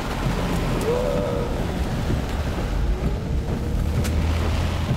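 Steady rush of a car driving through tropical-storm rain and wind: rain and gusts on the car and tyres on a flooded road, over a low rumble inside the cabin.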